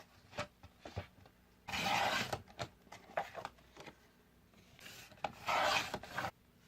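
A sheet of paper being cut to size in two long continuous strokes, about a second each and a few seconds apart, with small taps and clicks of handling in between.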